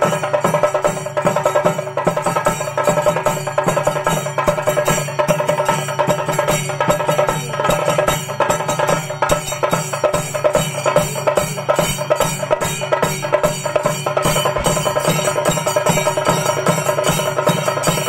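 Chenda drums beaten with sticks in a fast, steady rhythm, with elathalam hand cymbals clashing and ringing along: a Kerala chenda melam percussion ensemble.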